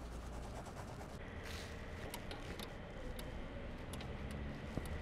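Quiet low background hum with a short scratch and a few faint light clicks: a pen marking a spiral notepad and a payphone's metal handset being handled at its cradle.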